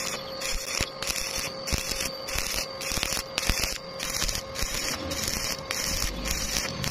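Stick-welding arc crackling and sizzling as a flux-coated electrode lays a bead on galvanized steel pipe. The hiss swells and drops in even pulses, about two and a half times a second.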